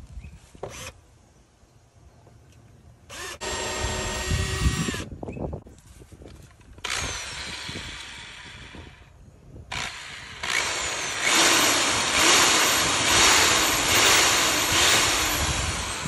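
An electric drill runs briefly about three seconds in as a pilot hole is drilled. From about seven seconds a drill with a hole saw cuts into the van's plastic lower side panel, and the cutting grows louder from about ten seconds on.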